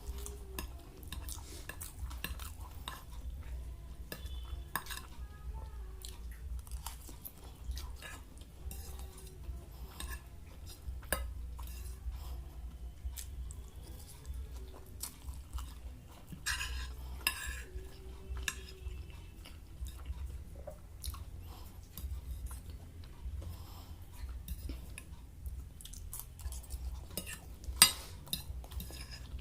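Cutlery clicking and scraping against a plate as a meal of fried Maggi noodles and chicken pakora is eaten, with chewing and crunching in between and a few louder clusters of clicks. A low steady hum runs underneath.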